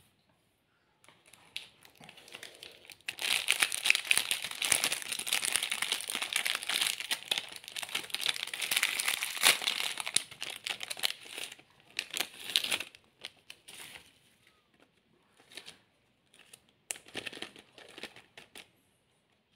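A foil-lined plastic snack wrapper crinkling and tearing as it is pulled open by hand. It is loud and dense for about eight seconds, then breaks into a few short rustles near the end.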